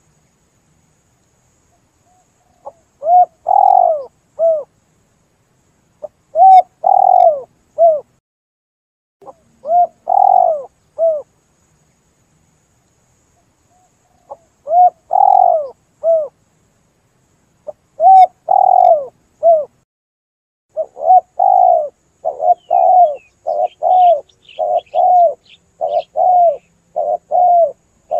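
Spotted dove (tekukur) cooing: short phrases of a few low coos every three to four seconds, becoming a fast, almost unbroken run of coos about 21 seconds in. Faint high chirps of a smaller bird come in near the end.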